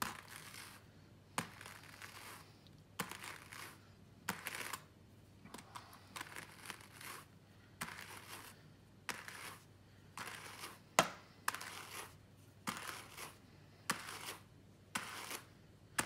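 Pair of hand cards brushing fine llama fibre, the wire teeth of one card drawn over the other in short, scratchy strokes about once a second, each starting with a light click.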